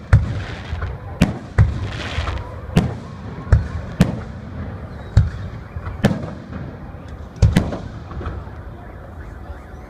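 Fireworks display: aerial shells bursting in an uneven series of loud bangs, roughly one a second, some followed by a crackling hiss.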